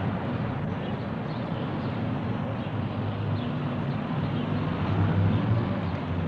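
Steady low rumble with a hiss of background noise, unchanging throughout.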